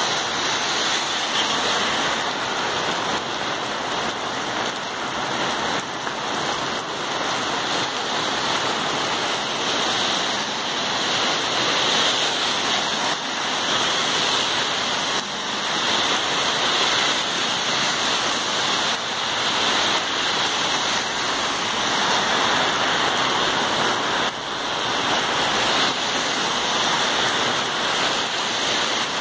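Heavy rain pouring down onto a wet street, a steady, dense hiss.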